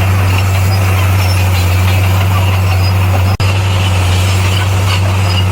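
Komatsu bulldozer's diesel engine running with a steady, loud low drone. The sound drops out for an instant a little over three seconds in.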